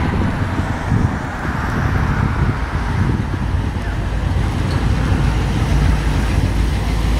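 Engine of a 1957 Chevrolet station wagon running as the car drives in and pulls closer, with a deep low rumble that grows slowly louder as it nears.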